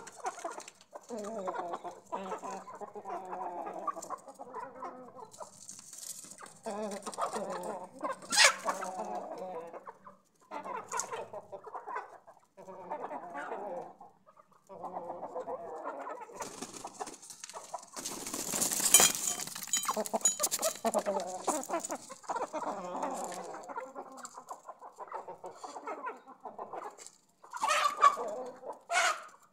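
Flock of Aseel chickens clucking steadily while pecking at pieces of roti thrown to them: feeding-time clucking. About two-thirds of the way through there is a louder, noisy burst.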